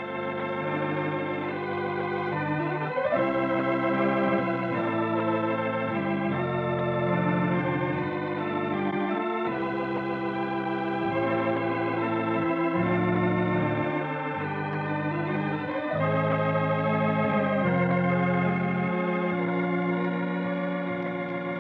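Organ music: a slow run of held chords, each lasting a second or two, with the bass notes moving along with them.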